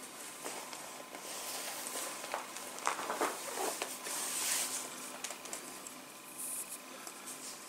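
Cotton macrame cord rustling and rubbing as it is handled and pulled through knots, a run of soft scrapes that is busiest in the middle.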